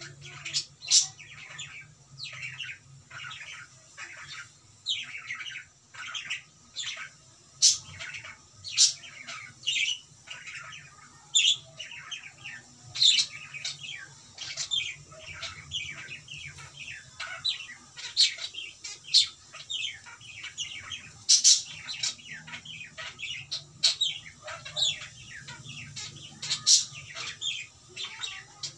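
Cockatiel chirping: a long, irregular run of short, sharp chirps, a few of them much louder than the rest.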